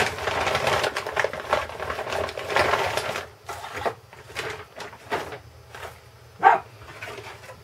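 Plastic bag crinkling and rustling as hands dig clear plastic parts out of it, busiest in the first three seconds, then softer scattered crackles.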